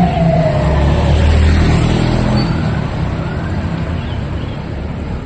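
A passing emergency vehicle's siren sliding down in pitch and fading in the first second, over the low rumble of a heavy vehicle's engine, then steady street traffic noise.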